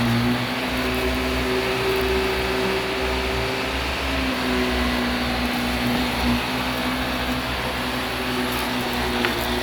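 Vacuum cleaner running steadily over carpet, its motor hum shifting slightly in pitch now and then.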